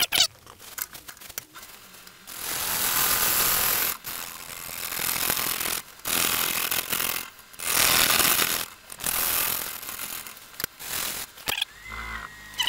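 A turning gouge cutting a spinning green-wood blank on a wood lathe during rough turning. After a couple of seconds of light clicks, the cut runs in several passes of one to two seconds each, with short breaks between them.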